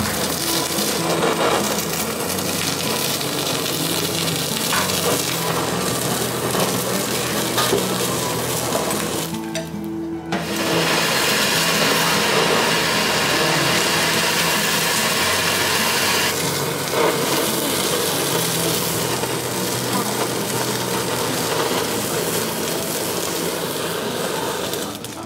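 Handheld kitchen blowtorch flaming the top of nigiri to sear it (aburi): a steady, loud hiss that stops for about a second near ten seconds in, then carries on.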